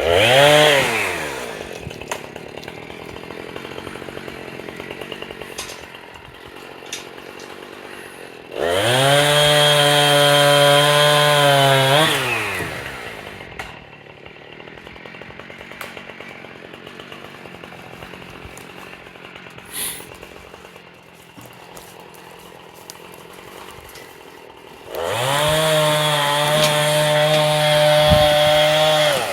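Chainsaw revved to full throttle three times: a short rev at the start, then about four seconds held at high speed in the middle and again near the end. It drops back to a quiet idle in between.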